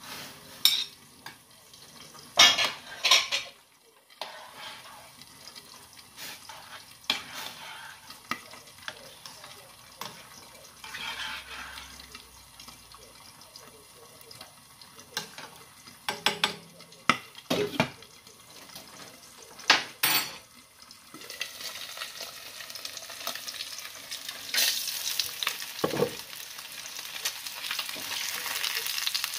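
Kitchen cooking sounds: metal spoons, a ladle and plates clinking and knocking against a steel soup pot as small octopus goes into the broth. From about two-thirds of the way in, a steady hiss of food cooking builds and grows louder toward the end.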